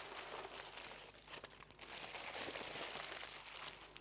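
Aluminium foil crinkling and rustling as it is peeled off a rested steak: a soft, continuous run of crackles with small ticks.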